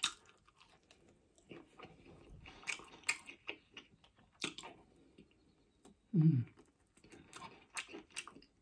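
Close-miked chewing and biting of takeaway food: scattered crunches and wet mouth clicks, with a sharp bite at the very start and a short hummed "mm" about six seconds in.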